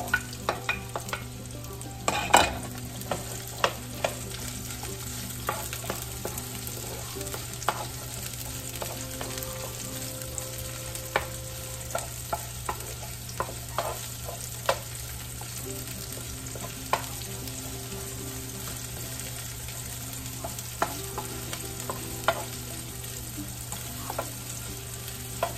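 Sliced onion and garlic frying in oil in a nonstick wok, a steady sizzle, while a wooden spoon stirs them, clicking against the pan every second or so. A louder knock comes about two seconds in.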